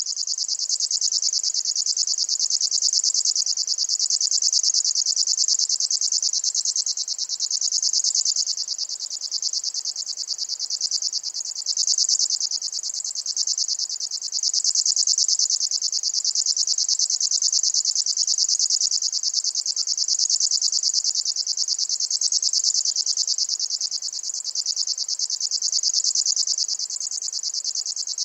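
A Locustella warbler (grasshopper warbler) reeling: one unbroken, high, insect-like trill made of very fast ticks, holding steady in pitch.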